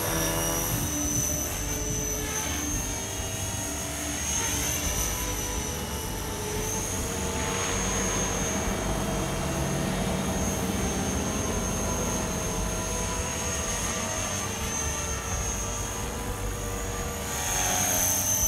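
Blade 450 3D electric RC helicopter flying aerobatics, a steady high whine over a rotor wash that swells and sweeps in pitch as it manoeuvres. It grows loudest near the end as the helicopter comes down low.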